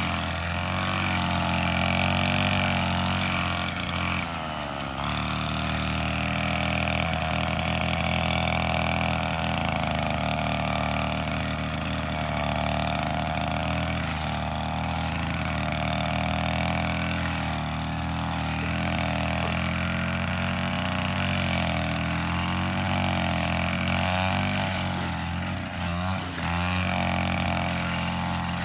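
Petrol brush cutter engine running steadily while cutting grass, its speed wavering up and down as the head meets the grass, with a brief dip about four seconds in and another near the end.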